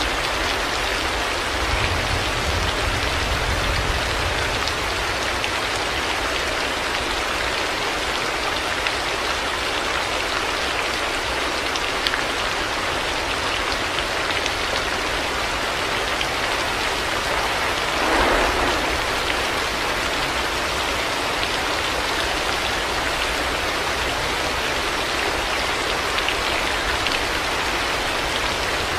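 Heavy rain falling steadily, an even hiss of drops on hard surfaces. There is a low rumble a couple of seconds in, and a brief louder rush about eighteen seconds in.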